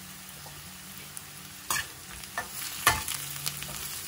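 Stuffed bitter gourds and sliced onions sizzling in oil in a metal kadai, with a spatula scraping and clicking against the pan several times from a little before halfway through as they are stirred.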